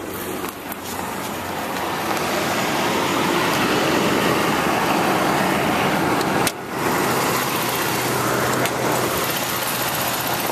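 A 1991 Toyota pickup's 3VZ-E 3.0-litre V6 idling steadily, mixed with handling noise from a camera carried on the move.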